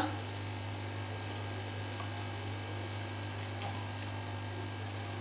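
Steady low electrical hum with a faint even hiss.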